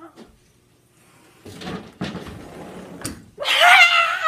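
Soft scuffling thumps on a carpeted floor with a sharp knock, then a loud, high-pitched wavering cry near the end.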